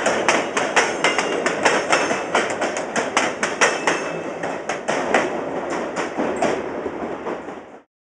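Train wheels clattering over rail joints: quick, uneven clicks, about four a second, over a steady rumble. It starts suddenly and fades out near the end.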